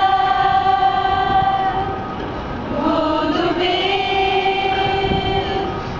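A song with a singing voice holding two long, steady notes, the second coming in about three seconds in.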